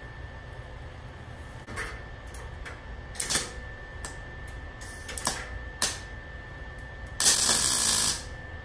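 MIG welder arc crackling in one loud burst of just under a second near the end, a plug weld through a drilled hole fixing a patch panel into a rusted VW Beetle front inner wheel well. A few short, sharp crackles come before it.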